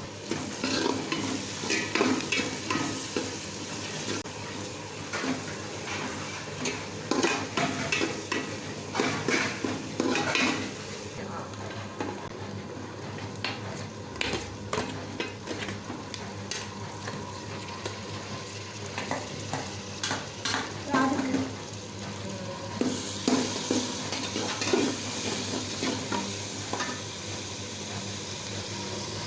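Food frying in hot oil in a pan, sizzling steadily while a spoon stirs it, with frequent scrapes and clinks against the pan. The sizzle grows louder about three-quarters of the way through.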